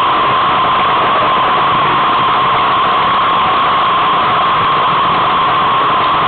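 Steady, loud rushing noise of wind blowing over the microphone of a camera riding on a moving bicycle, even throughout with no separate events.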